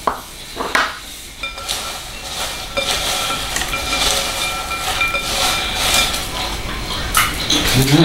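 Hands tossing and mixing popped popcorn in a bowl: a dense dry rustling and crackling of the kernels, with a couple of light knocks near the start.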